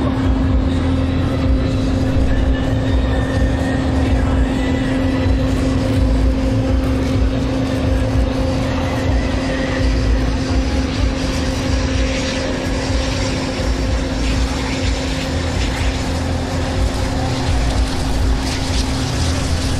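Aircraft engine running steadily, a constant hum over a low rumble.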